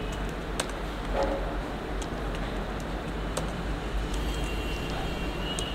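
Computer keyboard keys pressed a few times, sparse short clicks while figures are typed in, over a steady low background hum.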